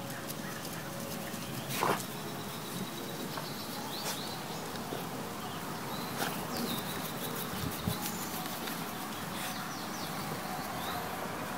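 A few short, high chirps from birds over a steady outdoor hiss, with scattered brief clicks and scuffs. The loudest is a short sharp knock about two seconds in.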